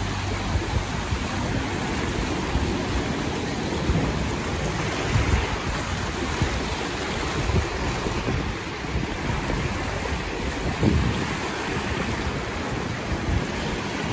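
Fast, churning river water rushing through a narrow channel below a dam, with irregular low rumbles of wind buffeting the microphone.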